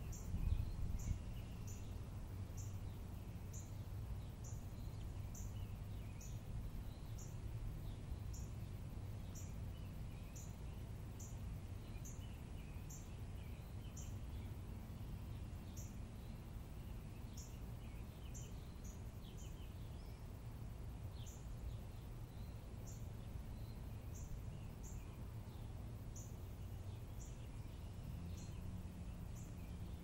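Birds chirping in the trees, with a thin high note repeating about twice a second, over a steady low rumble of wind on the microphone that rises briefly just after the start.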